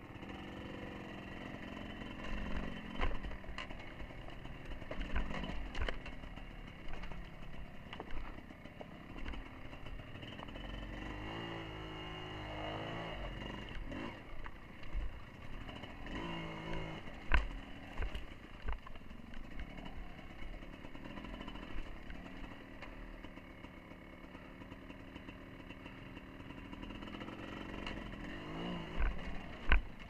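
Off-road motorcycle engine running at low revs, picking up and falling back with throttle blips during a slow descent over rocks. Sharp knocks and clatter, the loudest about two-thirds of the way through and right at the end.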